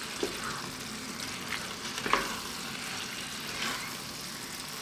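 Spaghetti in a tomato and cream sauce sizzling in a frying pan while two wooden spoons toss and stir it, with a few short scrapes of the spoons against the pan.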